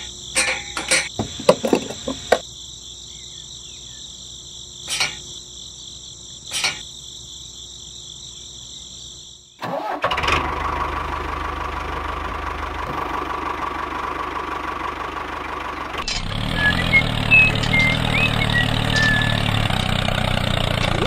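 A steady high whine from the toy fuel pump, with a few clicks and two short knocks, while the nozzle is in the tank. After about ten seconds a tractor engine starts and runs steadily, growing louder and deeper from about sixteen seconds.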